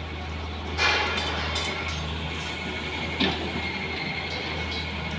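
Daewoo tracked excavator's diesel engine running steadily under load as the hydraulic arm lifts and swings a bucket of soil. Two short, louder noises stand out, about a second in and just past three seconds.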